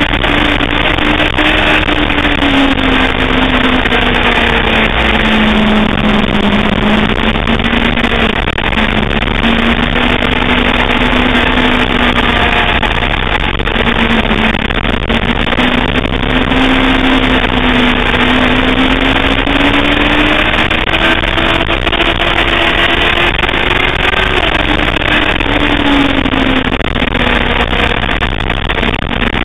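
Sportbike engine at track speed, heard onboard through a GoPro over a dense rush of wind noise. The engine note sinks over the first several seconds, then rises and falls slowly a few more times.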